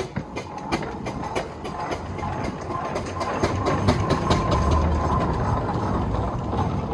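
1908 Marshall 7 NHP steam traction engine running, its motion and gearing clanking and knocking over a low rumble that swells in the middle.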